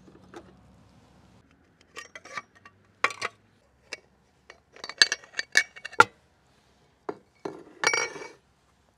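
Steel parts of an electric meat grinder clinking and knocking as the grinder head is taken off and handled. Scattered sharp clinks come in clusters, busiest a little past the middle, with a short rattle near the end.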